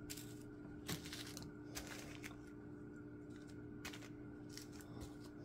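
Quiet handling of small plastic bags of diamond painting drills and a paper chart: a few soft clicks and rustles over a steady low hum.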